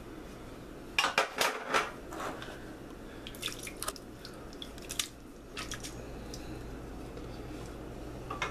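Open metal tuna can being tapped and shaken over a slow cooker crock to knock the tuna out: a quick cluster of clicks and knocks about a second in, then scattered taps.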